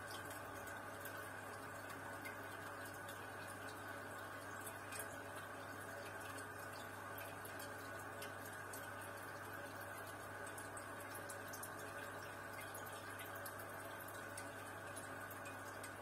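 Aquarium air bubbling up through sponge filters and an air line: a steady watery trickle dotted with many small pops and drips, over a low steady hum.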